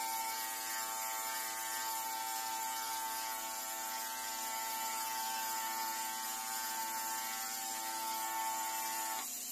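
Handheld cordless nano spray gun running, its motor giving a steady electric whine over a high hiss as it mists sanitizer; the whine cuts off near the end.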